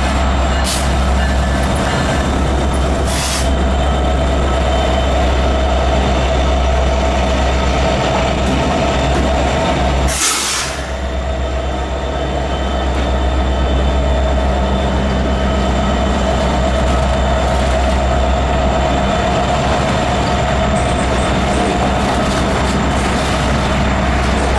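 Freight train's diesel locomotives passing close by, their engines running with a steady low drone and a steady whine, then freight cars rolling along the rails. There is a brief loud hiss about ten seconds in.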